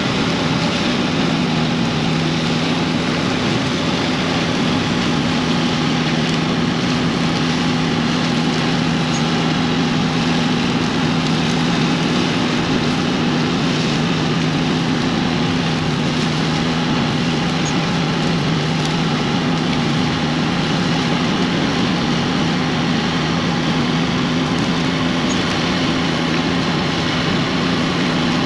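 Steady engine drone from the Bell 4206D tractor pulling a Soilmax stealth tile plow through the ground, laying drainage tile under load. Two steady low tones over a broad hiss, with no change in pitch or level.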